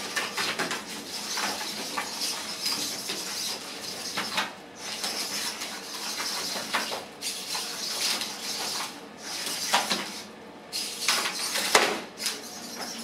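Small humanoid robots' servo motors running and their metal frames clattering and tapping as they grapple and step about on the ring mat. There are louder knocks near the end as one robot is thrown down.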